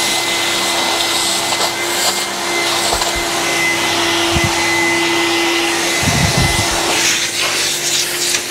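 Shop vacuum running steadily, its hose nozzle sucking sawdust out of freshly cut domino mortises in a wooden door rail. Its steady hum and whistle are briefly joined, about six seconds in, by a low fluttering as the nozzle moves along the wood.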